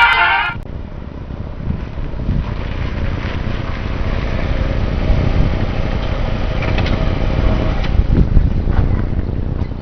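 A motor vehicle running, a steady low rumbling noise, after a brief loud burst of hiss right at the start.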